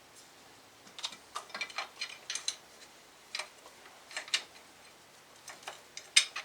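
Hand ratchet wrench clicking in short, irregular bursts as a bolt is turned, with a few pauses between bursts.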